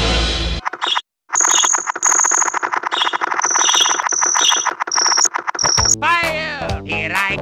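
Background music stops about half a second in. After a brief silence comes a fast, repeating musical passage with high ringing notes. Near the end a cartoonish, sliding-pitch character voice starts.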